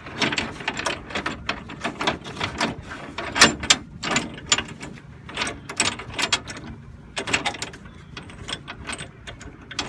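Loosened coil spring compressor clanking and rattling as it is shaken and worked out of a car's front coil spring: irregular metal knocks and clicks, several a second, the loudest about three and a half seconds in.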